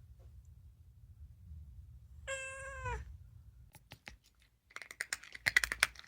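A domestic cat meows once, a call a little over half a second long about two seconds in. It is followed by a run of sharp clicks and rattling that grows louder near the end.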